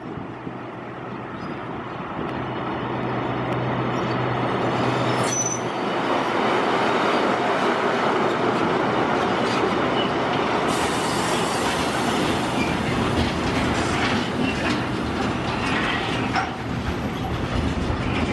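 An ex-DR V100-class (BR 201) diesel-hydraulic locomotive passes close by with its engine running. A train of hopper wagons follows, rolling past with wheels clicking over rail joints and squealing from about halfway through.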